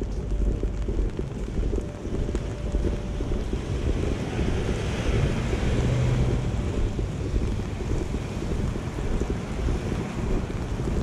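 Wind buffeting the camera's microphone as a steady low rumble, with a brief swell of hiss about halfway through.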